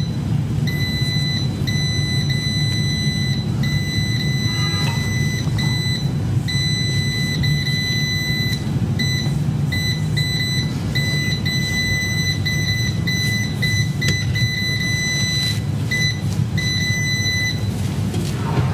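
Digital oven control panel beeping as its buttons are pressed and held to step the set temperature down, in a run of short and long beeps that stop shortly before the end. A steady low hum runs underneath.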